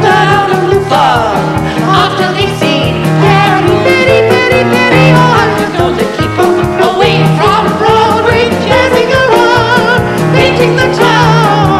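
A song performed live: singing with a marked vibrato over instrumental accompaniment, playing without a break.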